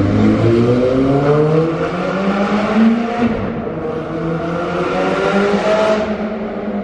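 Straight-piped Ferrari 430 Scuderia V8 accelerating in a tunnel, heard from inside the cabin. The revs climb, drop sharply at an upshift about three seconds in, climb again, and fall away near the end.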